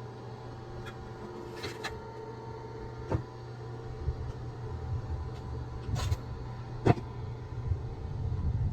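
A motor running steadily at a low pitch, with a few sharp knocks or clacks over it, the loudest about seven seconds in.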